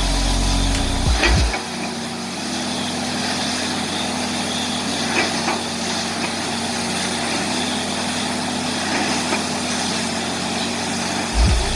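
Truck-mounted borewell drilling rig's engine running with a steady drone. Low music beats are heard for about the first second and a half.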